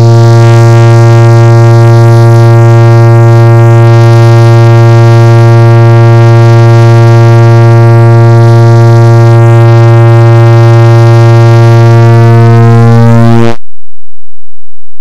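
Clock-tick sound effect repeated so fast that the ticks merge into one loud, steady, low buzz with many overtones. Near the end the upper overtones waver and the buzz cuts off suddenly.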